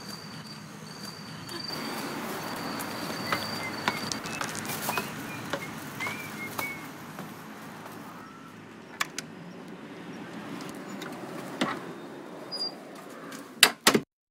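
Ambience with an insect trilling in high, steady stretches during the first few seconds and a few short, bird-like chirps, under a soft background hiss with scattered clicks. A few sharp clicks come near the end, and then the sound cuts off.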